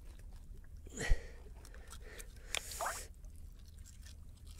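Knife and fingers gutting a garfish by hand: small wet squelches and scrapes, with a sharp knock about a second in and a brief rustling burst about halfway through.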